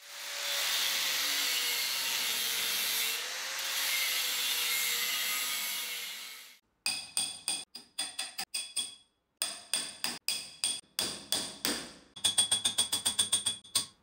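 Steel rod hammered against a microwave transformer's welded laminated steel core, each blow ringing metallically and coming faster, about four or five a second, near the end, to knock the core apart and free the winding. Before the blows, a steady hiss lasts about six seconds.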